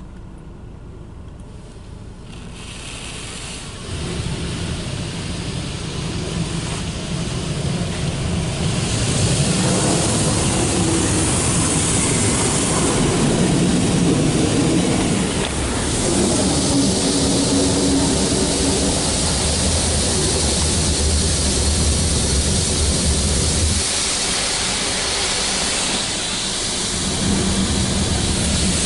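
Belanger Kondor KL2 automatic car wash spraying water over the car as its gantry moves past, heard from inside the car as a steady rushing hiss over a low machine hum. It starts fairly quiet, grows louder a few seconds in, and stays loud from about a third of the way through.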